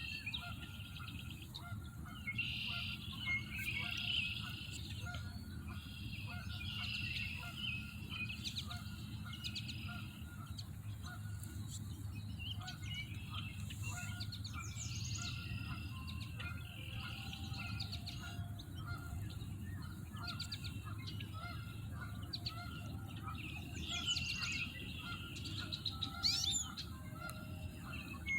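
Birds chirping and calling in repeated short bouts over a steady low rumble.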